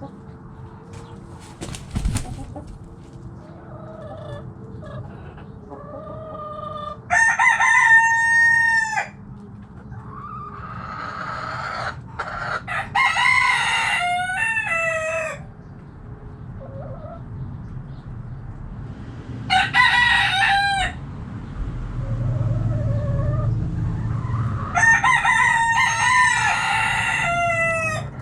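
Backyard roosters crowing four times, several seconds apart, some crows overlapping, with hens clucking quietly between the crows. A brief knock comes about two seconds in.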